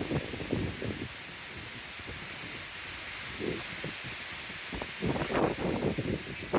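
Heavy thunderstorm: a steady hiss of rain with gusts of wind buffeting the microphone, strongest at the start and again in the last second and a half.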